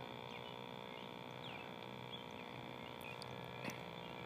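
A faint steady hum of several held tones, with a few short bird chirps and one sharp click near the end.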